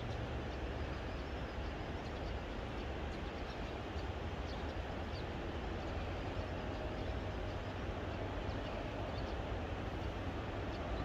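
Steady low rumble of distant traffic, with faint, short high bird chirps scattered throughout.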